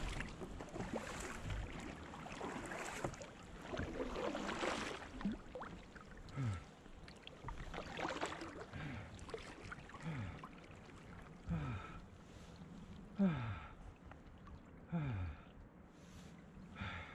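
Kayak paddling through shallow water. For the first few seconds the paddle splashes and the water rushes. After that comes a short, low, falling groan about every second and a half, in time with the paddle strokes.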